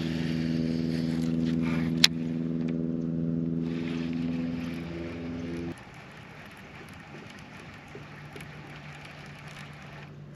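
Bow-mounted electric trolling motor running with a steady hum. About six seconds in it steps down sharply to a quieter, lower hum. A single sharp click comes about two seconds in.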